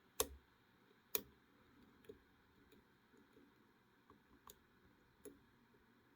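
Sparrows disc pick working the discs of a Zarker J55S disc detainer padlock: several faint, sharp clicks at uneven intervals, the two loudest in the first second or so, as the pick turns and catches the discs.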